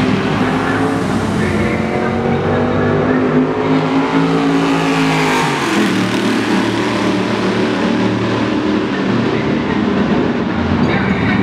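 Super Race 6,200 cc V8 stock car engine at full throttle. Its pitch climbs steadily, falls sharply about five and a half seconds in, then runs on at a lower pitch.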